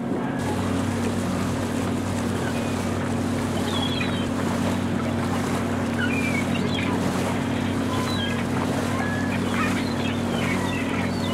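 Steady hum of a model tugboat's Speed 600 electric motor and drive, picked up on board while it cruises, over a wash of water and wind noise. A few short high chirps come and go from about four seconds in.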